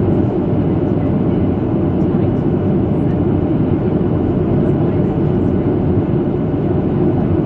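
Steady cabin noise inside a Boeing 737 airliner during its descent: the even, low-pitched noise of airflow and jet engines, unchanging throughout.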